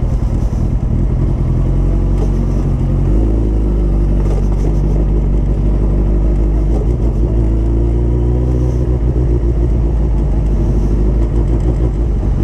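Sport motorcycle engine running under way, a steady low drone whose pitch shifts about three seconds in and then rises and falls with the throttle.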